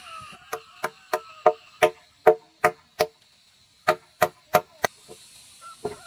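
Hammer blows, about a dozen sharp strikes in two runs of roughly three a second with a short pause between them.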